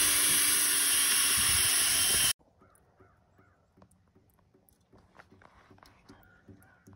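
Cordless drill boring a tap hole into a maple tree trunk: a loud, steady whirr with a constant hum, which cuts off abruptly about two seconds in. After that come faint outdoor sounds with a few faint bird calls.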